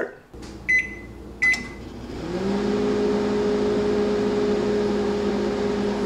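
Microwave oven keypad beeping twice with button clicks, then the oven starting up about two seconds in and running with a steady hum.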